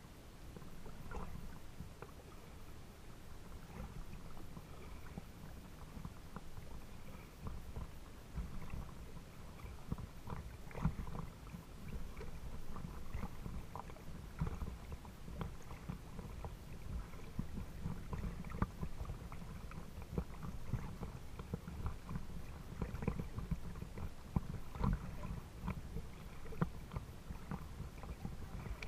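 Water lapping and sloshing against the hull of a small craft close to the microphone: a steady low rumble with frequent small, irregular splashes.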